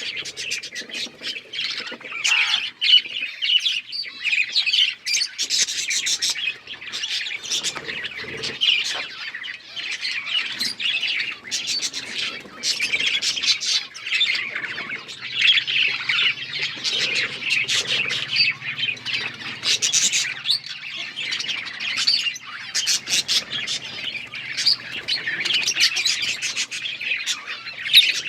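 Budgerigars chattering, chirping and warbling without a break, many short calls overlapping with the odd harsher squawk.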